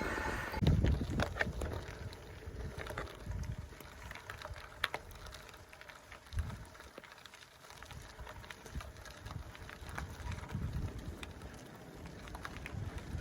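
Riding noise from a Specialized Diverge gravel bike: wind gusting over the microphone above a faint rolling hiss, with scattered sharp clicks and one plain click about five seconds in.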